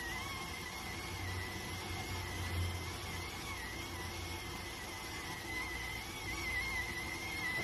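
Electric cooker (電鍋) whistling steadily as it cooks: one high whistle that wavers slightly in pitch, over a hiss of steam and a low rumble.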